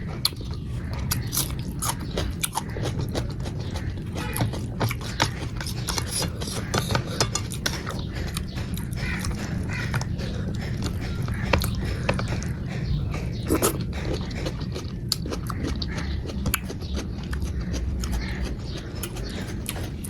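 Close-up chewing and eating sounds: many short, wet mouth clicks and smacks, over a steady low hum.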